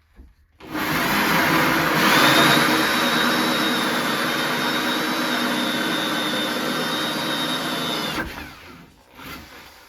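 Electric drill running a hole saw through an oak door, finishing the door-knob bore. It starts about a second in, runs steadily for around seven seconds with a motor whine, and winds down near the end.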